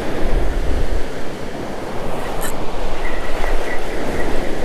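Ocean surf breaking with wind buffeting the microphone, and a faint run of high ticks in the second half.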